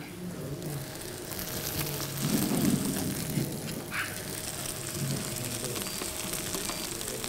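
Food sizzling in a steaming frying pan on an induction hob, a steady frying hiss that thickens about a second in, with a brief louder, low-pitched noise about two and a half seconds in.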